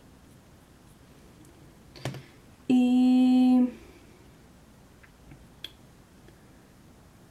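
A woman humming one steady note for about a second, a few seconds in, just after a short knock. Otherwise faint room tone with a small click or two.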